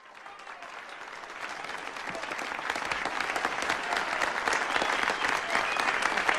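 Crowd of people applauding. The clapping fades in from silence and grows steadily louder.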